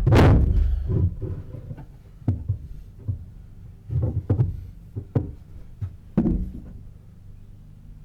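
Crowbar prying apart an epoxy-glued plywood battery box: one loud crack-and-thud at the start, then a run of irregular knocks and thumps as the wood is worked and struck.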